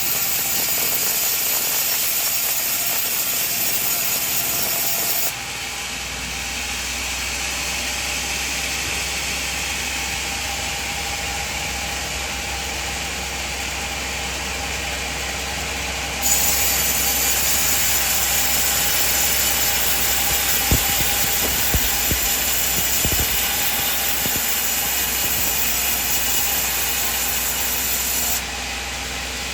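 Sawmill band saw running and sawing through coconut wood, with a steady machine hum underneath; the sound changes abruptly a few times, and a few sharp knocks come about two-thirds of the way in.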